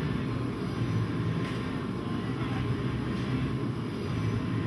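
A steady low mechanical drone, with one faint click about a second and a half in.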